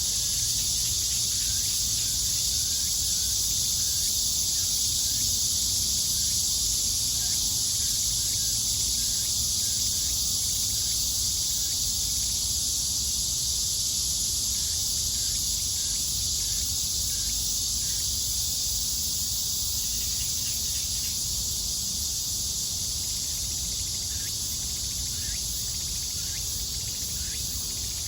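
A chorus of cicadas buzzing steadily in a dense high hiss, with faint short bird chirps now and then and a low rumble underneath.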